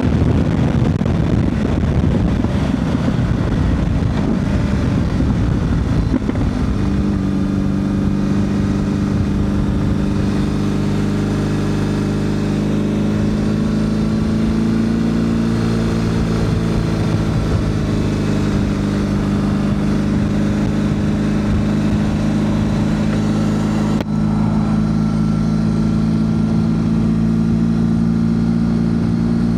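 BMW R1200 GS Adventure's boxer twin engine, fitted with a GRmoto slip-on exhaust, running loud as the bike is ridden on the road. For the first six seconds the sound is rough and gusty; after that it settles into a steady cruising note, rising slightly in pitch around the middle.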